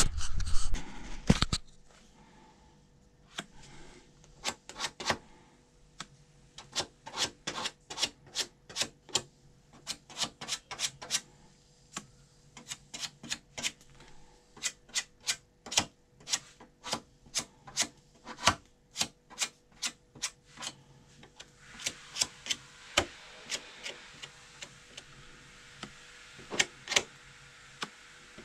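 A long series of sharp clicks or taps, irregular, roughly one to three a second, with a faint steady hiss joining about two-thirds of the way through.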